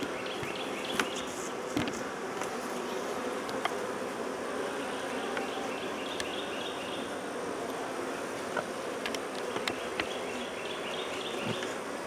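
Honey bees buzzing steadily around a worked hive, with a few light clicks.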